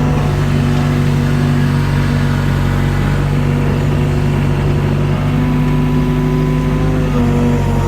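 Mini excavator's diesel engine running steadily under load as the machine tries to lift a heavy chunk of old block foundation wall, with a slight shift in pitch near the end.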